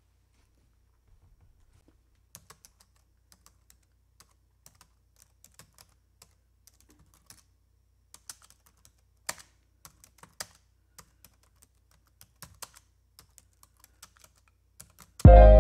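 Computer keyboard typing: irregular single keystroke clicks, a few louder than the rest, as text is typed out. Music starts suddenly right at the end.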